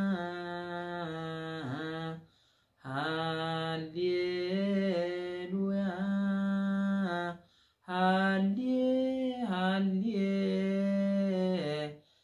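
A man singing an Orthodox Tewahedo hymn (mezmur) solo and unaccompanied, holding long notes with melismatic turns. He breaks off briefly for breath twice, about two and about seven and a half seconds in.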